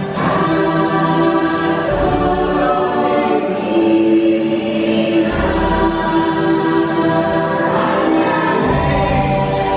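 Choral music: voices holding long, sustained chords, with deep low swells rising under them a few times.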